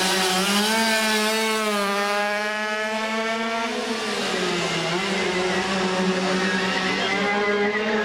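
Small racing motorcycle engine running at high revs with a steady, continuous note; its pitch sags about four seconds in and climbs back.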